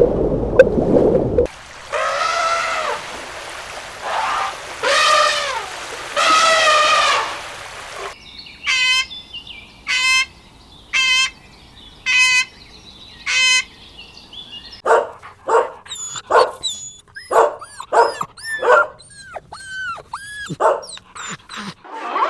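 A sequence of animal calls from different animals. First come three drawn-out calls, then five short high calls about a second apart, then a rapid run of short yelps or chirps.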